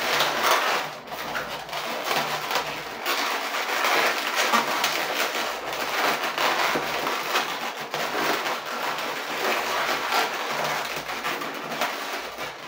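Inflated 260 latex modelling balloons rubbing and squeaking under the hands as the petals of a balloon flower are twisted and pressed into shape: a continuous run of small scrapes and squeaks.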